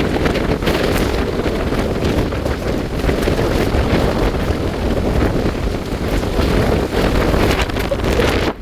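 Strong gusty wind buffeting the microphone on a beach, a loud, heavy rushing that swells and dips with the gusts.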